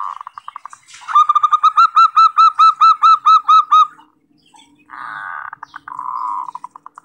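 Zebra dove (perkutut) calling: a short rattling burst, then about a dozen quick, evenly repeated coo notes over about three seconds, then another rattling burst that breaks into separate pulses near the end.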